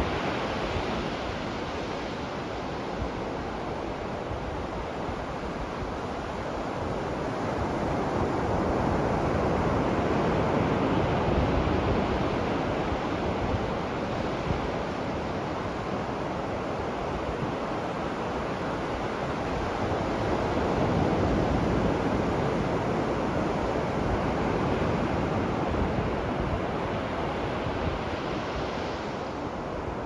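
Ocean surf breaking and washing up a sandy beach in a steady rush. It swells louder twice as bigger waves come in.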